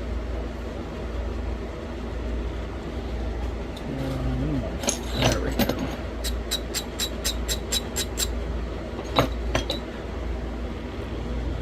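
Sharp clicks of stone being worked on a thin green novaculite flake during flintknapping: a short cluster about five seconds in, then an even run of about ten clicks at roughly five a second, and two more a little later, over a steady low hum.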